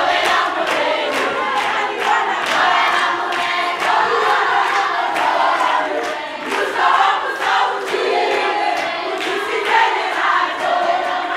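A large crowd singing together in full voice, with steady rhythmic hand claps keeping the beat about three times a second.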